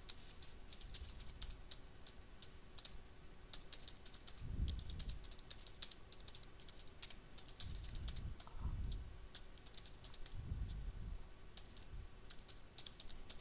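Typing on a computer keyboard: a steady patter of key clicks, several a second, with a few soft low thumps in between.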